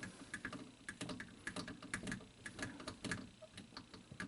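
Water turned on at a washing machine's PVC cutoff valve and running into the supply hose: a low, uneven rushing with irregular sharp clicks and taps, several a second.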